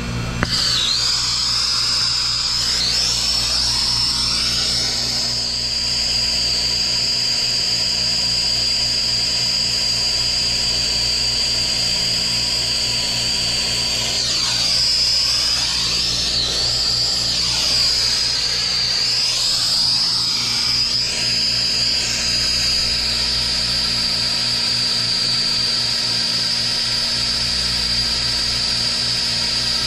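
Acetylene brazing torch flame comes on sharply about half a second in, then burns with a steady hiss and a high whistling tone that wavers now and then, as it heats a copper refrigerant line joint for brazing.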